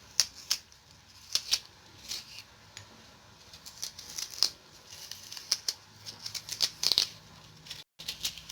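Short, crisp scraping and cutting strokes at an uneven pace, about two a second: the flesh of a raw turnip being dug out to hollow a cavity in it.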